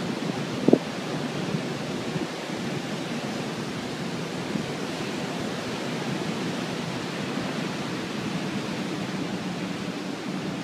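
Steady rushing noise of a hurricane's wind and water, with one brief knock about a second in.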